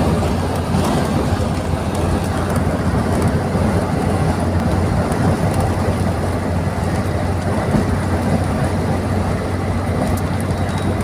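Heavy rain driven by strong wind: a loud, steady rushing noise with a deep rumble underneath.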